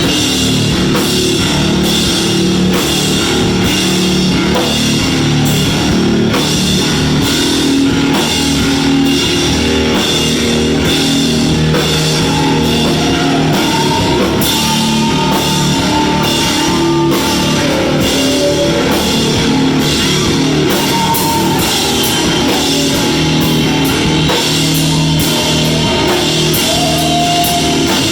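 Live rock band playing loud: distorted electric guitar over a drum kit keeping a steady beat, with cymbals throughout.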